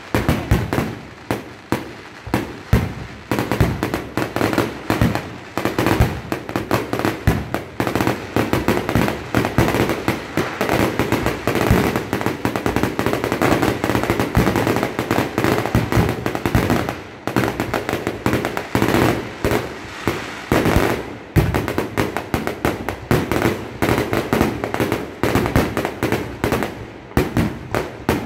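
Aerial fireworks display: a dense, continuous barrage of shell bursts, many sharp bangs a second with crackling between them.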